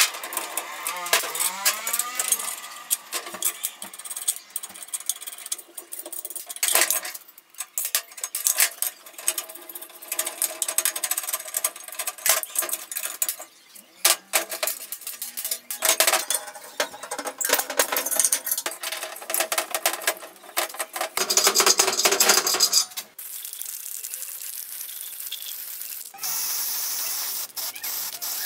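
Small metal parts clinking, rattling and knocking in irregular taps and handling sounds, with a few seconds of steady hiss near the end.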